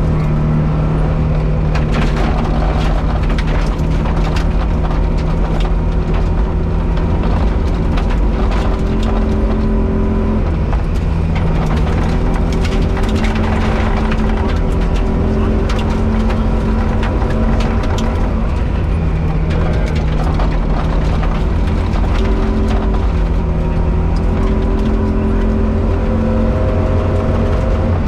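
Rally car engine heard from inside the cabin at stage pace, its revs climbing and dropping back again and again through gear changes. Frequent sharp clicks and knocks of stones and gravel hitting the underbody run through it.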